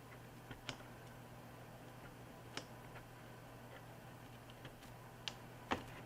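Sharp plastic clicks of an MSI MS-16K2 gaming laptop's bottom cover being pried up, its clips snapping loose one at a time: a handful of separate clicks, the loudest near the end.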